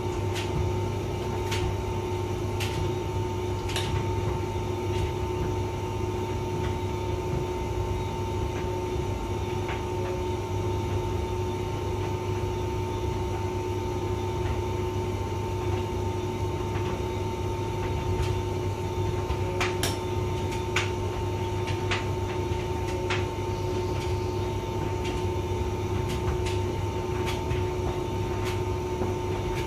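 Hotpoint vented tumble dryer running: a steady motor and fan hum with the drum's low rumble, and scattered light clicks, a cluster of them about two-thirds of the way through.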